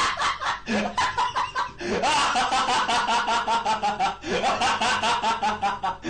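Meme laughing sound effect: a voice snickering in fast runs of short 'heh-heh' syllables, about six to eight a second, in several long phrases that each start with a rising pitch.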